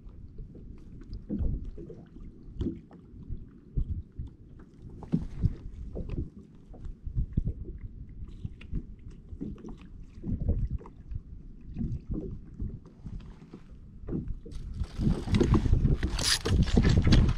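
Small waves lapping and knocking against a kayak hull, heard as irregular low thuds. In the last few seconds a louder rush of movement noise comes in as the angler swings the rod.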